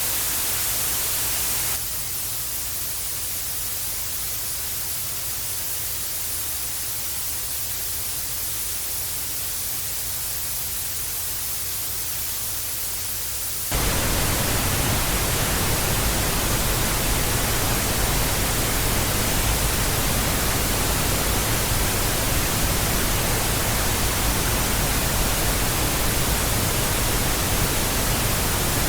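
Television static: a steady hiss of white noise, switching abruptly to a thinner, quieter hiss about two seconds in and to a fuller, louder one about fourteen seconds in, as one static sound effect gives way to the next.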